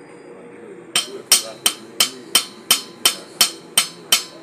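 Hammer blows on steel, evenly about three a second from about a second in, each with a sharp metallic ring: striking the wheel hub assembly to work a broken wheel stud loose.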